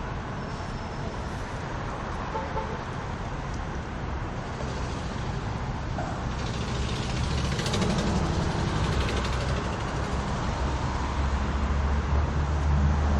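Street traffic: a steady wash of passing road vehicles, with a deep low rumble swelling louder over the last few seconds as a heavy vehicle comes close.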